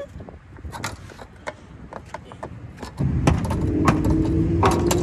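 Damaged plastic bumper cover and trim of a crashed car clicking and knocking as it is pulled and pried at. About three seconds in, a loud steady low engine-like drone starts abruptly, with sharp metallic clanks of a pry bar over it.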